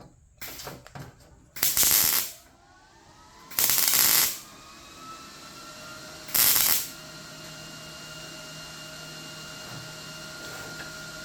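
Three short tack welds on sheet-metal body panels, each a crackling hiss lasting about half a second, a couple of seconds apart. A faint steady whine comes in after the second tack.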